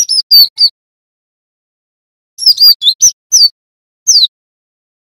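Cinereous tit (glatik batu) calling in short clusters of sharp, high whistled notes that slide downward: about four quick notes at the start, five more about two and a half seconds in, and a single falling note near the end.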